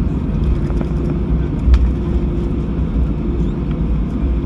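Cabin noise of an Airbus A320 taxiing after landing: a steady low rumble from the idling engines and the wheels rolling on the taxiway, with a constant hum. A single knock sounds nearly two seconds in.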